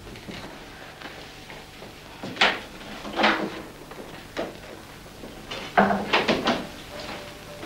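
Household handling noises: a few separate knocks, then a quick run of clacks near the end as a box on the table is handled.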